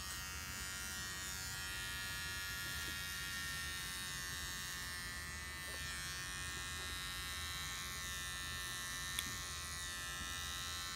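Electric beard trimmer running with a steady buzz as it shaves hair from a head.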